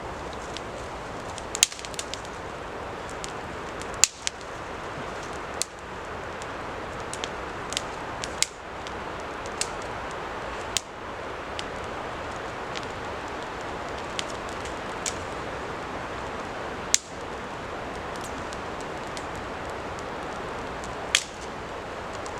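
Small campfire of damp dead sticks burning, giving sharp, irregular pops and cracks every second or few over a steady hiss.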